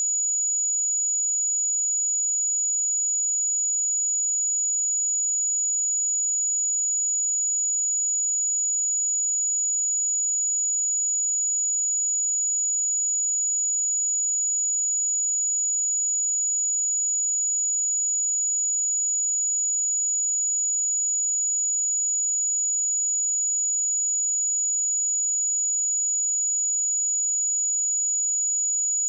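A pure 6878 Hz sine-wave test tone, one steady high-pitched pitch held at a constant level.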